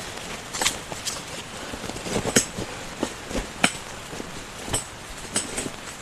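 Irregular sharp knocks and clicks, about a dozen, over a steady hiss of wind and rain.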